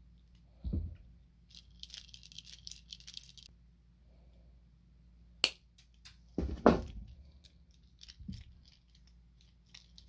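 Small metal hand tools working stainless steel wire on a wooden lure's hinge: light metallic clicking and rattling, a single sharp snip about five and a half seconds in as the wire is clipped, and a couple of thumps of tools set down on the wooden bench, the loudest about a second after the snip.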